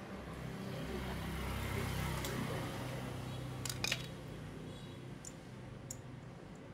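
Small metal clicks of a screwdriver working on a motorcycle carburetor body as its jets are unscrewed, with two sharp clicks close together about four seconds in and a few fainter ticks later, over a low rumble that swells and then fades.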